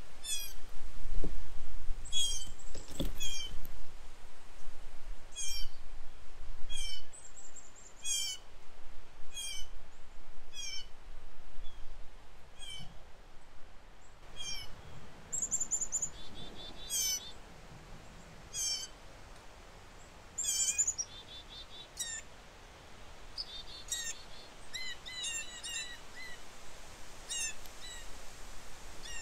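Wild birds calling: one bird repeats a short, downward-slurred call note about once every second or so, while other birds add different chirps and trills in the second half, over a low wind rumble.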